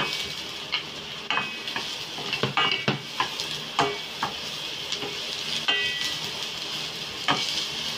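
Chopped onion sizzling in hot oil in a stainless steel pan, with a wooden spatula stirring and knocking against the pan at irregular intervals, some knocks briefly ringing.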